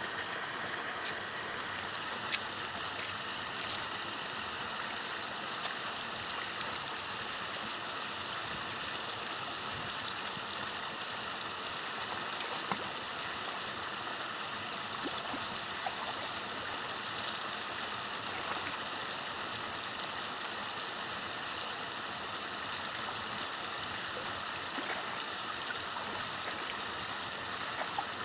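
Steady rushing water noise, with a few small splashes and sharp clicks as a nylon gill net and a caught fish are handled in the water.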